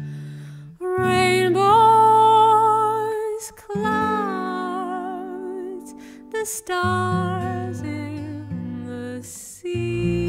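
Slow acoustic band music: a wordless melody line of held, sliding notes with vibrato, in phrases a few seconds long, over acoustic guitar and bass.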